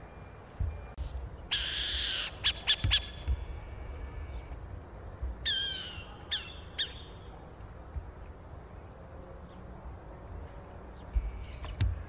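Burrowing owl calling: a harsh rasping screech, then three sharp clicks. A few seconds later comes a short, harsh, downward-sliding call followed by two short notes, and near the end another rasping call with clicks.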